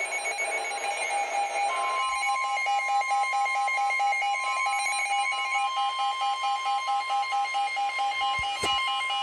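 NOAA Weather Radio's steady 1050 Hz warning alarm tone, starting about two seconds in and signalling a warning about to be read. Under it runs a rapid, pulsing electronic alarm beep.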